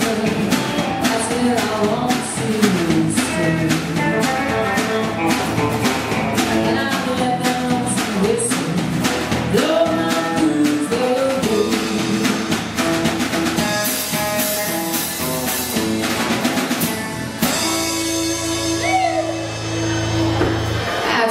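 A live band playing a country song on guitars, bass guitar and drum kit, with a woman singing. After a cymbal-heavy stretch, the band ends on a long held final chord for the last few seconds.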